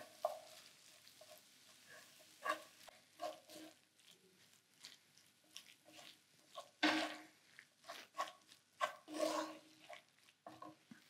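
Wooden spoon stirring and folding a thick mushroom and goat's cheese filling in a frying pan: soft, intermittent sounds of the mixture and the spoon against the pan, a few louder strokes now and then.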